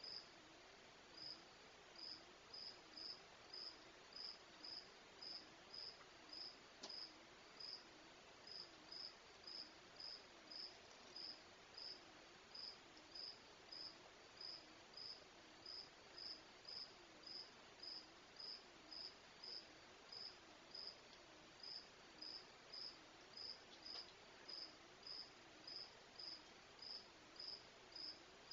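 Crickets chirping faintly in a steady, even rhythm, about three short high chirps every two seconds, over a faint low hum that wavers up and down.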